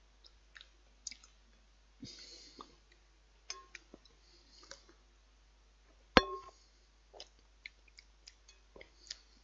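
Metal spoon clicking and scraping against a bowl of thick soup as it is scooped up, with one sharper, ringing clink about six seconds in. Soft chewing and mouth sounds of eating between the clicks.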